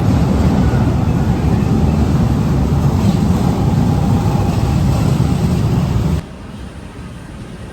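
Steady low rumble of vehicle noise, cutting abruptly to a much quieter background about six seconds in.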